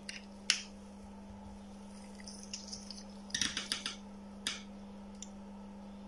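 A few light clicks and taps of test probe tips being handled and set against a circuit board's pins: one click about half a second in, a quick cluster around the middle, another shortly after. A faint steady low hum lies under them.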